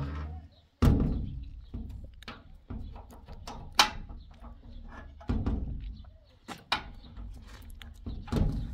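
Metal door and its latch worked by hand: an irregular series of thunks and knocks with sharp metallic clicks, the sharpest click about four seconds in.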